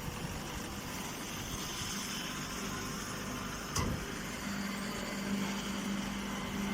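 Machinery running steadily, with a low hum that grows stronger about halfway through and a single knock a little before the four-second mark.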